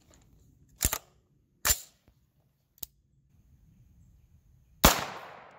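Metallic clacks as a round is loaded into a 9-inch AR-style 300 Blackout short-barrelled rifle, then, near the end, a single loud unsuppressed shot of a subsonic 220-grain handload that rings out and fades over about a second.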